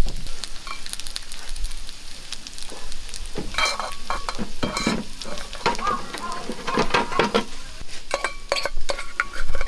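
Plastic rice paddle scooping and scraping cooked white rice out of an aluminium rice pot, a run of soft scrapes and clicks. A steel bowl clinks against the pot with a short metallic ring a few times near the end.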